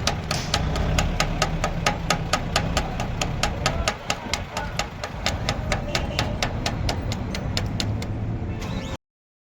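Rapid, very regular knocking, about four or five strikes a second, over a low rumble; it stops near the end.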